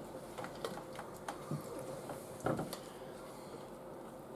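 A spoon clicking and tapping softly as crème fraîche is scooped from a tub and dolloped onto a tray of nachos, a few scattered light taps with the loudest about two and a half seconds in.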